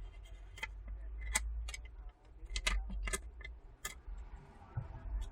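Small sharp clicks and taps, about eight of them at irregular intervals, from tools and small phone parts being handled on a work surface during an iPhone repair, over a low rumble of handling noise.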